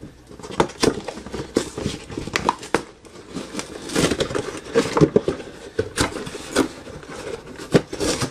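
A cardboard toy box being opened and its contents handled, with irregular clicks, knocks and rustling of packaging.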